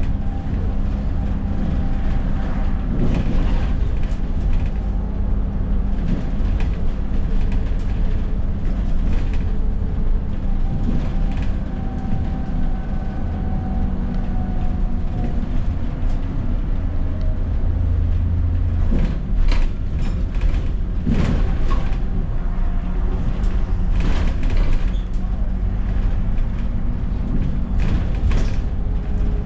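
Interior of an Alexander Dennis Enviro400 double-decker bus running: a steady low engine and drivetrain drone with a faint whine that shifts in pitch, and the body creaking and rattling now and then.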